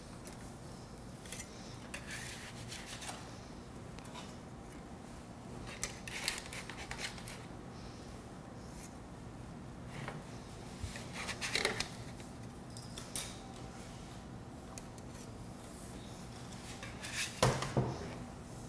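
Metal spatula scraping against a baking sheet as baked sugar cookies are lifted off, in scattered light scrapes and taps. The clearest come a little past the middle and near the end, over a steady low hum.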